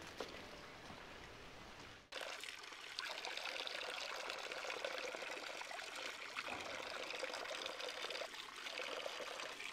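Water pouring steadily from the spouts of a stone wall fountain into its stone basin, setting in abruptly about two seconds in, with hands splashing in the stream.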